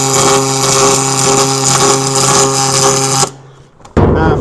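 MIG welder arc on aluminum: a steady crackling, hissing buzz with a humming tone that cuts off about three seconds in as the bead ends, followed by a loud sudden noise near the end. On this outside-edge joint the argon shielding doesn't fully cover the weld, which the welder says makes a dirtier, sootier weld with a different tone.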